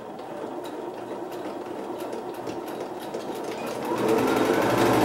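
Domestic electric sewing machine stitching a seam in tulle, running steadily and growing louder about four seconds in.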